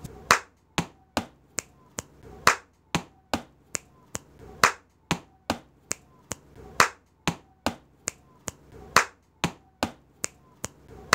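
Body-percussion sound pattern, one clap, two taps and two finger snaps, repeated about five times in a steady rhythm. The strokes come about every half second, and the clap that opens each round is the loudest.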